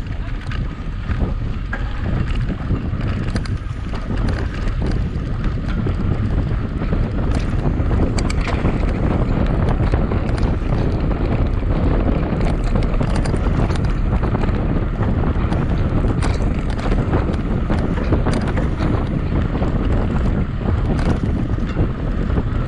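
Heavy wind noise on the microphone of a camera riding along on a mountain bike at speed, with low rumble from the ride and scattered sharp clicks and knocks from the bike.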